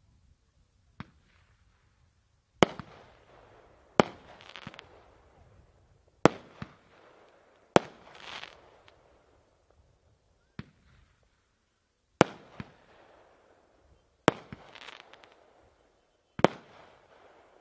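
Black Cat 'Hawk Attack' consumer firework going off: about eight sharp bangs spaced one to two seconds apart, with a few smaller pops between them. Each bang is followed by a short fading crackle.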